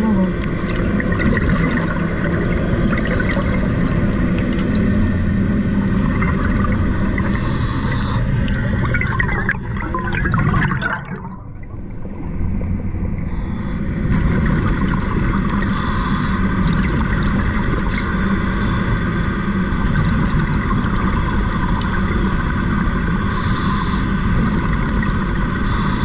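Underwater rush of water and bubbles from a diver's breathing gear, with a short hiss recurring every few seconds as the diver breathes. The noise swells and then dips briefly about eleven seconds in.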